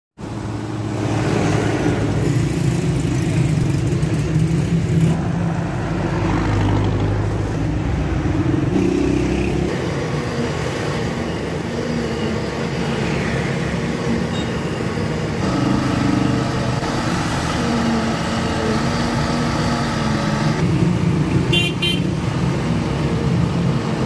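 Busy road traffic with vehicle engines running steadily, over the drone of a concrete mixer truck's diesel engine discharging concrete at the start. A vehicle horn honks briefly near the end.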